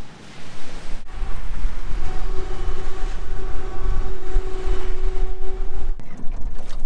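Wind buffeting the microphone in a heavy low rumble, with a steady two-note hum from about two seconds in until just before the end.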